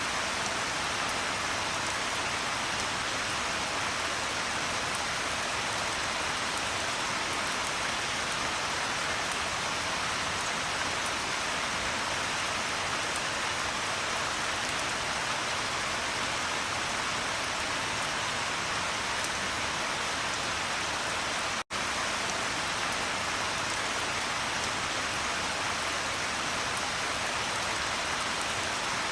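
Steady rain falling on a surface, a dense even patter with no thunder. The sound cuts out for a split second about three-quarters of the way through, then resumes unchanged.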